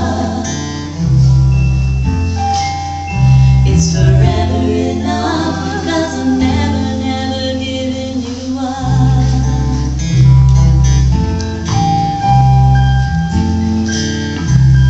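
Live acoustic family band: women's voices singing a song together, with the lead voice on top, over strummed acoustic guitars and deep, sustained bass notes.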